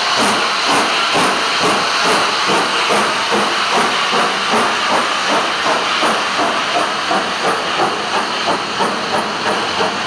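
FS Class 625 steam locomotive passing at close range with a loud steady hiss of steam and a regular beat of about two to three pulses a second. Near the end the goods wagons behind its tender roll past.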